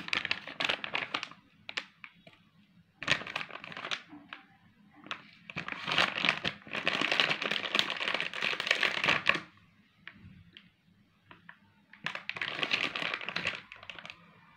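Clear plastic packaging crinkling in several bursts as a packet of makeup powder puffs is opened and handled, with the longest burst in the middle.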